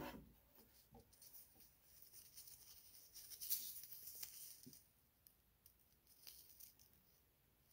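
Faint rustling of coat fabric and a paper-like label being fingered, with a few scattered light ticks.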